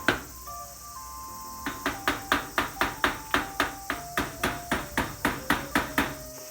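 Quick, even hammer blows, about four a second, in a run of some seventeen strikes after a single blow at the start, over background music.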